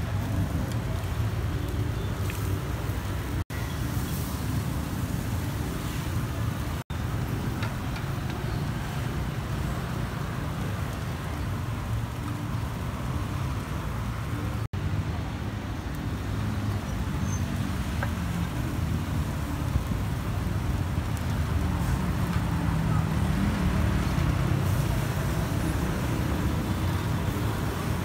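Steady street traffic noise, mostly low and even, broken by three brief dropouts to silence.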